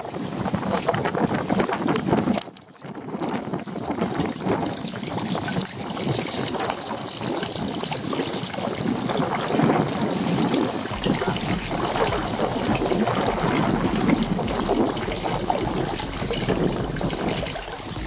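Water trickling and flowing in a steady rush, with a brief drop about two and a half seconds in. A low wind rumble on the microphone joins from about eleven seconds.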